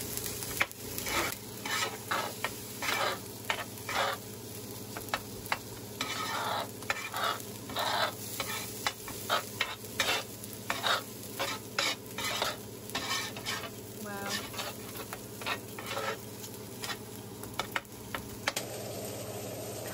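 Fried rice sizzling on a flat-top griddle while a metal spatula chops and scrapes through it, breaking up the clumps. The spatula knocks and scrapes against the griddle about twice a second over the steady sizzle.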